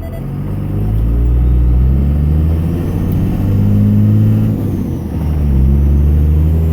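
2002 Cummins 24-valve 5.9-litre inline-six turbo diesel, heard from inside the cab, pulling under load up a hill. The engine note rises, dips briefly about five seconds in, then builds again.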